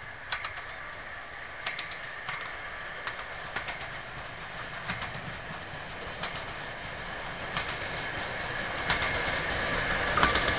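Steam locomotive 60163 Tornado, a three-cylinder Peppercorn A1 Pacific, approaching with its train, the sound growing steadily louder as it nears. Sharp clicks come at a regular pace, about one every two-thirds of a second.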